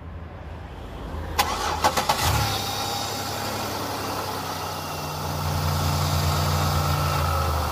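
2007 Chevrolet Impala's engine started for the first time after an oil change: the starter clicks and cranks about a second and a half in, the engine catches within a second, then idles steadily on fresh 5W-30 oil, smoother as the owner hears it.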